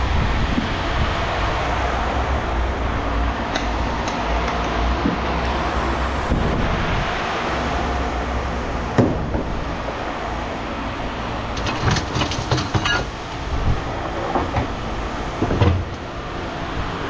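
Steady rumble of running machinery with a low hum, broken by a few light metallic clinks and rattles, typical of scrap metal being handled.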